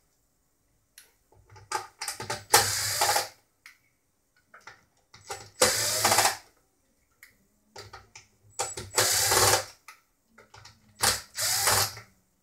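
Cordless drill/driver running in short bursts of under a second, about every three seconds, backing out the screws that hold the fader bank of a Yamaha LS9 digital mixer, with small clicks and handling between runs.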